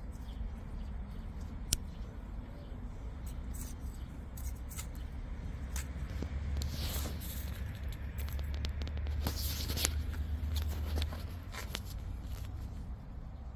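Hand trowel scraping and digging in garden soil, a run of short irregular scrapes and clicks over a low rumble that grows stronger in the middle.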